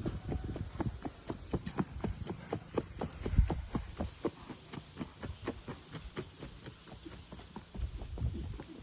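Hooves of a gaited horse striking the ground in the marcha, a quick, even run of hoofbeats several times a second.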